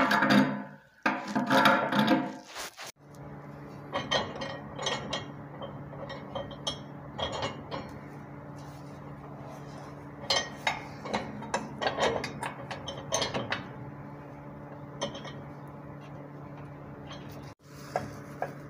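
Irregular light metallic clinks and taps of radiator hardware being handled, over a steady low hum.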